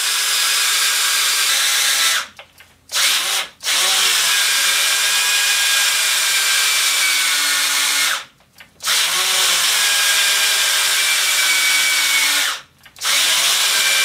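Black & Decker Matrix 20-volt lithium-ion cordless drill running under load while boring holes in wood, a steady motor whine. It stops and starts again three times, winding down and back up. The battery is nearly drained, moments from the tool stalling.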